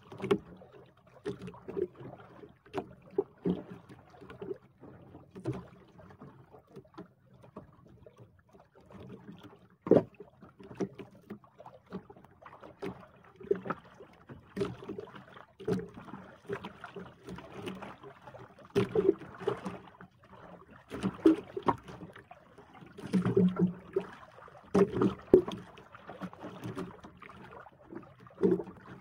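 Sea water slapping and splashing against the hull of a small outrigger boat, in irregular knocks and splashes.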